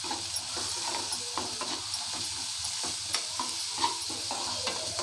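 Sliced onions and ginger paste frying in oil in a non-stick kadai, sizzling steadily while being stirred with a metal slotted spatula, which clicks and scrapes against the pan a few times.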